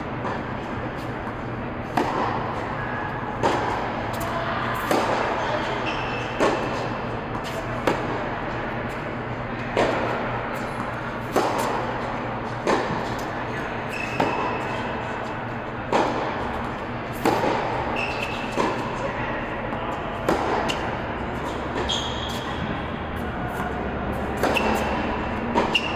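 Tennis rally: rackets striking the ball back and forth, a sharp pop about every one and a half seconds, each hit echoing in the large indoor tennis hall. A steady low hum runs underneath, and a few short high squeaks come in the second half.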